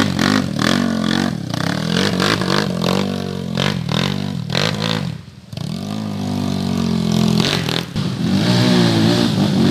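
Dirt bike engine revving hard under load on a steep, loose uphill trail, its pitch rising and falling with the throttle. The sound drops briefly about five seconds in, then builds again toward the end.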